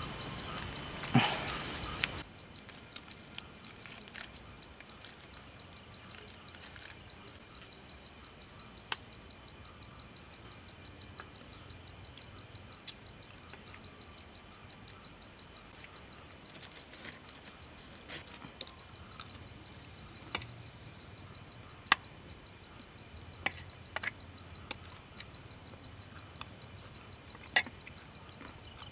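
Insects chirping in a steady high-pitched pulsing rhythm, several pulses a second. Scattered sharp clicks and taps come through it, and a louder rustling noise fills the first two seconds and cuts off abruptly.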